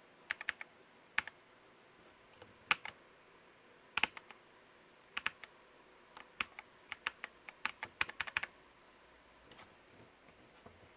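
Keys being pressed on a mechanical keyboard with clicky Outemu Pro Blue switches: scattered single clicks, then a quicker run of presses past the middle.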